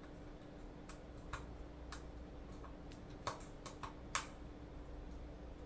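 Small metallic clicks and ticks of an Allen wrench and screws working against a metal radio cage: about nine irregular sharp ticks, bunched together between three and four seconds in, the loudest just after four seconds.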